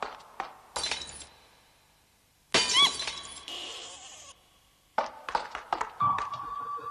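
A china cup smashing, as a cartoon sound effect: a short crash about a second in, then a louder smash with ringing shards about two and a half seconds in. A light, even ticking rhythm runs before the crash and comes back near the end.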